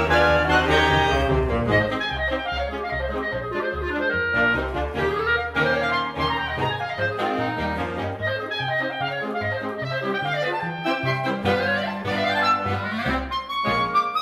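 Solo clarinet playing a fast melody with quick runs, accompanied by a small wind band of saxophones and clarinets with a moving bass line.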